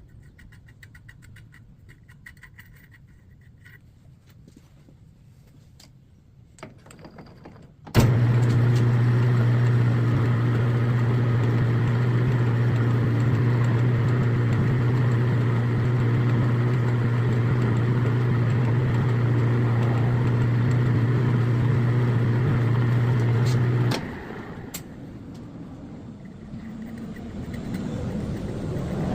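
Metal lathe motor switched on about eight seconds in, running with a steady, even hum for about sixteen seconds, then switched off abruptly. Before it there is only faint light ticking.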